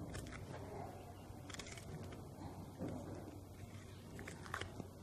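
Faint papery crackles of dry onion skin being peeled off by hand, a few soft ticks over a low steady background.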